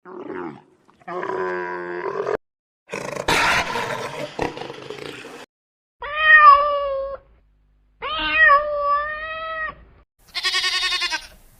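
A run of separate animal calls, one after another with short gaps between them, including two long cat meows in the middle.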